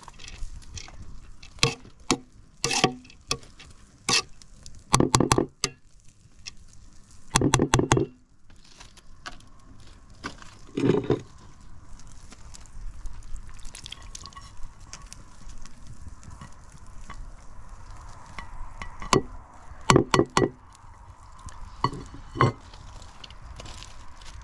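Cooking sounds: a pot and utensils knocked and stirred, with liquid sounds. Scattered sharp clinks and clatters, the loudest clusters about five, eight and eleven seconds in and again near the end.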